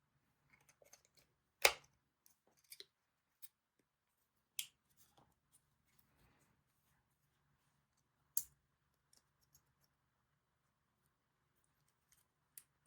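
Scattered sharp clicks and taps of small hard objects being handled, with the loudest about a second and a half in, another near five seconds and another near eight and a half seconds.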